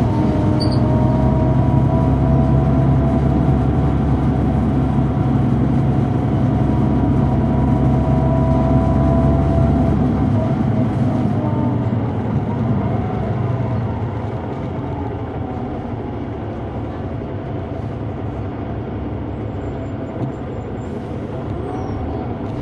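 Articulated diesel bus (a 2004 Neoplan AN459 with a Caterpillar C9 engine) heard on board under way, the engine's rumble under a steady high howl. About ten to twelve seconds in the rumble falls away and the sound grows quieter.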